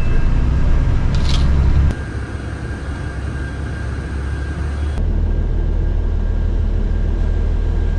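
Steady low rumble of a moving road vehicle, with abrupt changes in level about two and five seconds in where the footage cuts between shots.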